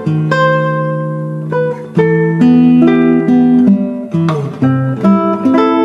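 Background music: plucked guitar notes and chords, a slow melodic line.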